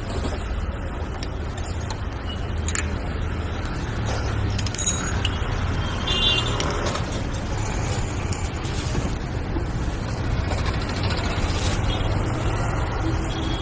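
Steady low rumble of street traffic, with a few sharp metal clinks and knocks as an autorickshaw's front wheel is unbolted and pulled off its hub.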